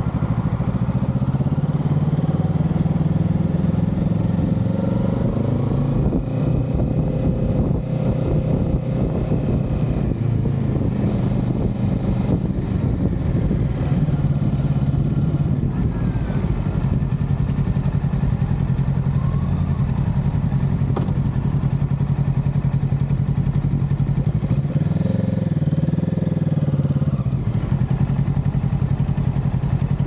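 Kawasaki Z650's parallel-twin engine running at a steady cruise under heavy wind rush on the microphone. Near the end the engine note briefly dips and rises again.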